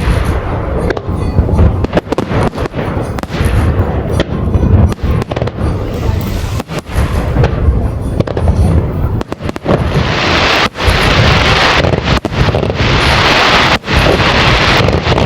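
Fireworks display: a rapid string of shell bursts and deep booms, then a dense, loud crackling hiss from about ten seconds in.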